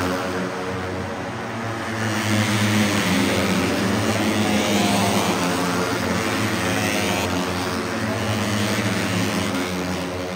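Moto3 racing motorcycles' single-cylinder 250cc four-stroke engines at high revs, with several rising whines as bikes accelerate through the gears over a steady low drone.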